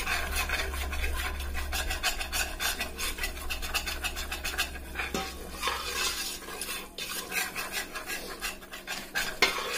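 Metal spoon stirring and scraping a flour-and-oil roux against the bottom and sides of a stainless steel pot in quick, continuous strokes. The roux is cooking on medium heat and browning toward a peanut-butter colour.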